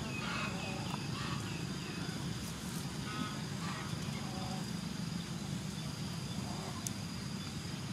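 Outdoor ambience: a steady low rumble with short, scattered bird calls, like those of ducks or geese.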